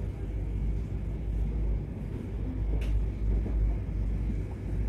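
Low, uneven background rumble, with a single sharp click about three seconds in.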